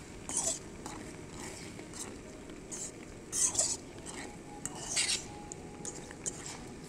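A fork stirring beaten eggs in a metal pot, scraping and clinking against the pot in short strokes, with louder scrapes near the start, about halfway through and about five seconds in.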